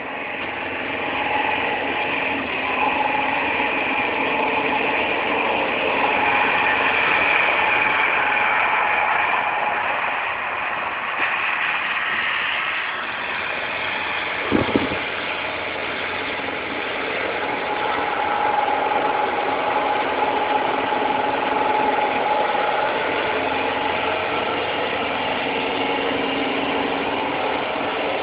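Mercedes-Benz 814 box truck's diesel engine running as the truck slides around on snow, its note shifting up and down with the throttle. A brief knock about halfway through.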